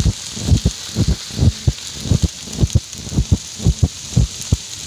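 Brush fire burning in low scrub: irregular low pops and thuds, about four a second, over a steady hiss.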